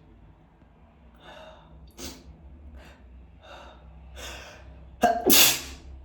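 A person's sneeze building up: several gasping inhales, then one loud sneeze about five seconds in.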